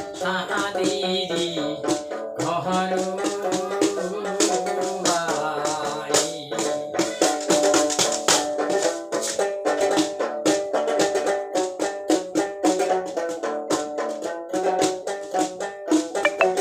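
Folk tune played on a long-necked plucked string instrument with a round body and bamboo neck, struck in quick, sharp, rhythmic plucks over steady notes, in the style of a Goalpariya folk song.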